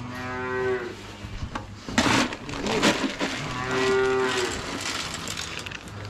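Calves mooing: two drawn-out bawls, one at the start and another about three and a half seconds in. Between them come a few sharp knocks and rustles, the loudest of them around two and three seconds in.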